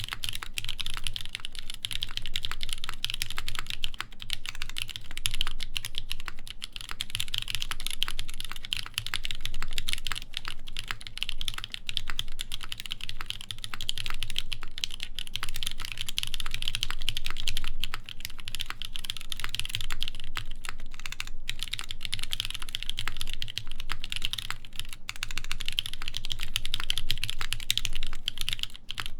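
Continuous typing on a Keycult 2/65 mechanical keyboard with a full brass plate, lubed NK Cream linear switches and GMK Noire ABS keycaps: a dense stream of key clacks with a few brief pauses.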